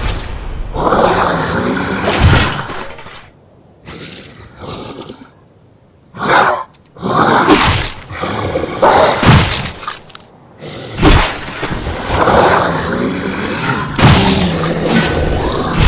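Designed monster sound effects of a skeleton warrior smashing things: a series of loud shattering and breaking crashes, with a quieter lull from about three to six seconds in.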